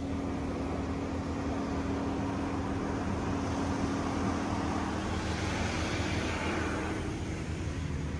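Water spray from an Oasis Typhoon touch-free car wash hitting the car, heard from inside the cabin. The hiss swells about halfway through as the spray passes close, then eases near the end, over a steady low hum.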